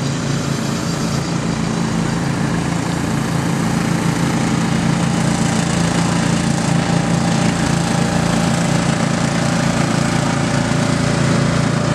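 Riding lawn mower engines running steadily at an even pitch as the mowers race.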